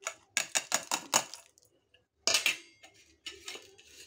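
Dry-roasted whole spices, mostly dried red chillies and coriander seeds, tipped from a steel plate into a stainless-steel mixer-grinder jar: a quick run of clicks and rattles as they land on the steel. A louder metal clatter follows a little over two seconds in, then a few light clicks.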